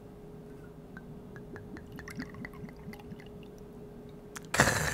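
Soju poured from a glass bottle into a small shot glass close to the microphone: faint glugging and trickling with small drips. A short, louder burst of noise comes near the end.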